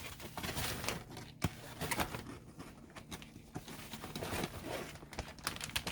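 Self-rising flour being scooped into a plastic zip-top bag: soft, irregular rustling of the bag with scattered light taps and clicks.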